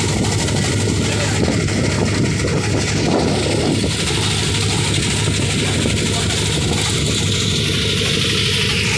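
Wooden river boat's engine running steadily under way, a constant low drone, with a steady rush of wind and water over it.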